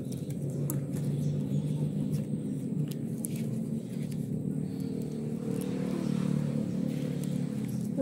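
Steady low engine hum, with light rustling and crinkling of banana leaves being handled and folded.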